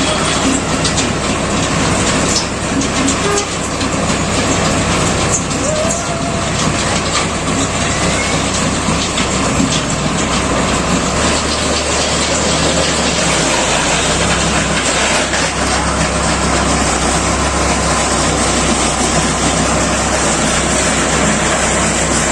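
Engine-driven earth auger drilling a hole for an electric pole: a loud, steady engine drone with scattered knocks and rattles, the engine note shifting about eleven seconds in.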